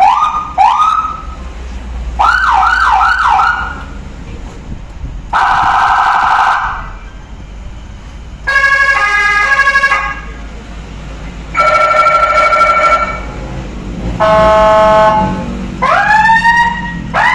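Whelen electronic vehicle siren run through its tones in short bursts with pauses between them: quick rising whoops, a rapid yelp, steady buzzing horn tones and stepped multi-tone patterns. It ends on rising whoops near the end.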